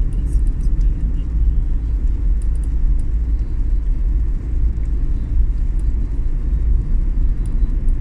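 Steady low rumble of a vehicle on the move: road and wind noise at the microphone, with a few faint ticks on top.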